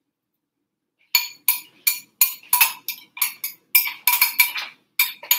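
A metal utensil beating egg in a small glass bowl, clinking against the glass in a quick, uneven run of sharp ringing strikes, about four or five a second, starting about a second in.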